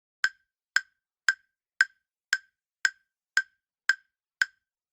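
Countdown timer sound effect: short, sharp ticks evenly spaced at about two a second, nine of them, counting down the time to answer a quiz question.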